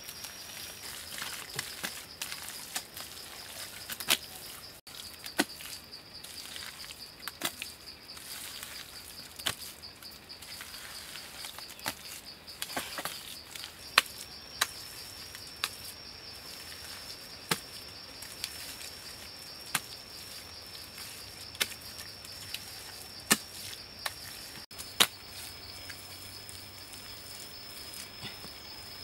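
Bare hands slapping and pressing wet mud, sharp irregular pats every second or two, over a steady high-pitched drone of insects.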